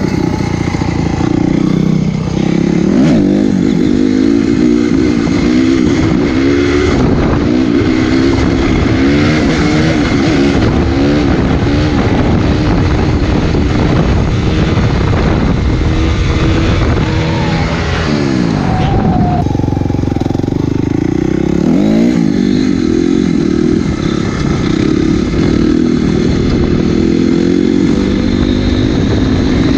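Honda CRF250R's four-stroke single-cylinder engine revving hard while pulling wheelies on the road, its pitch climbing and dropping again and again as the throttle is worked and gears change.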